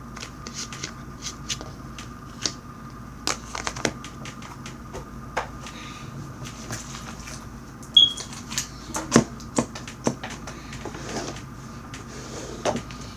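Hands working homemade butter slime (Play-Doh mixed with lotion) and its plastic containers: irregular clicks, taps and knocks over a steady background hum, busiest about eight to ten seconds in, with one brief high squeak near eight seconds.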